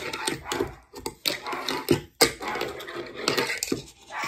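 Fingerboard being ridden: its small wheels rolling with a rough rattle, broken by irregular sharp clacks of the deck and trucks striking the surface.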